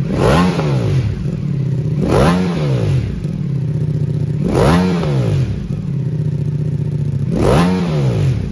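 Ducati Multistrada V4 S's 1158 cc V4 engine, breathing through a full Akrapovic racing exhaust system, idling between four short throttle blips. Each blip rises and falls quickly, then the engine settles back to idle.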